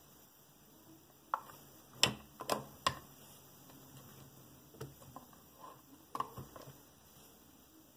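Scattered light clicks and taps of hands handling a small drone frame and its parts on a workbench, the sharpest about two seconds in.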